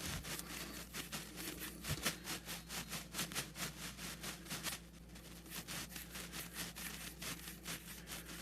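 Scotch-Brite scouring pad scrubbed quickly back and forth on the metal rod of a Goodman gas furnace's flame sensor, a steady run of short rubbing strokes with a brief pause about halfway through. The sensor is being cleaned of the dirt that kept it from detecting the flame and made the furnace short-cycle.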